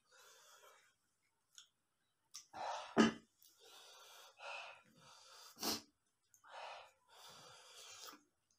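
A man breathing hard in short, noisy breaths through the mouth, with two sharper, louder intakes about three seconds in and again near six seconds: reacting to the chilli burn of spicy noodles on his lips.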